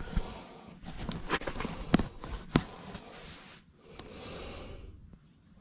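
Close handling noises: several sharp knocks and clicks amid rustling, then a softer, longer rustle near the end.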